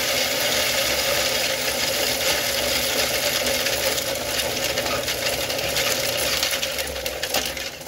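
Small electric corn mill running and grinding corn, a steady dense rattling grind of kernels between the grinding plates over the motor's hum; it dies down near the end.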